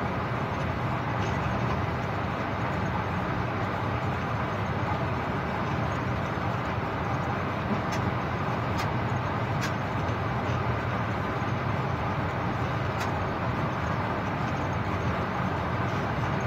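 Steady running noise of a moving train heard from inside the locomotive cab, with a few faint sharp ticks in the middle.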